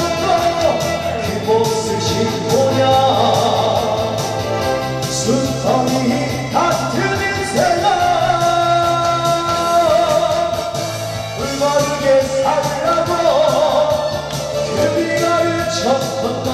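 A male pumba singer sings a Korean song into a handheld microphone through the PA, holding long notes, over instrumental backing music with a steady beat.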